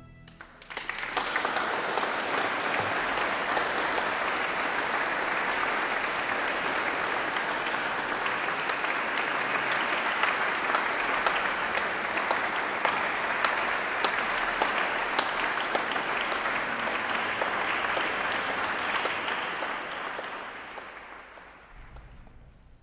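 Audience applauding at the end of a string ensemble's performance: the clapping starts about a second in, holds steady, then thins and fades out near the end.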